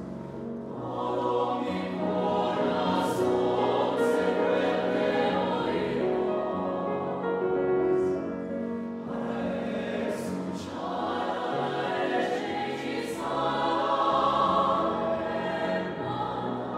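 Mixed choir of men's and women's voices singing sustained chords with piano accompaniment. Crisp sung 's' consonants cut through several times, and the sound eases slightly about halfway before swelling again.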